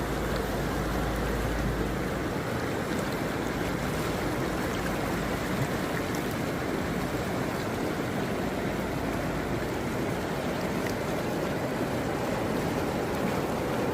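Flash-flood torrent rushing down a wadi: the steady, unbroken noise of fast-flowing floodwater. A low rumble sits under it for the first couple of seconds.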